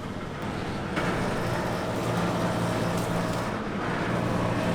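Motor running steadily with a low hum, getting louder about a second in.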